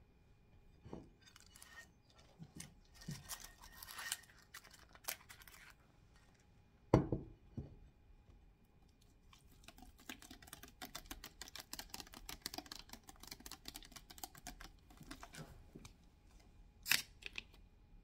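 A drinks bottle handled in the hands at close range. There are scattered taps and crinkles, then a single loud thump about seven seconds in. This is followed by a long run of fast, crackling clicks as the bottle is turned and squeezed, and one sharp click shortly before it is lifted to drink.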